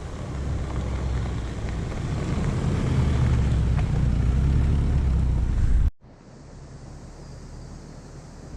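Vehicle engine and driving rumble, deep and steady, growing louder over the first six seconds. It cuts off abruptly at an edit and gives way to quieter vehicle rumble.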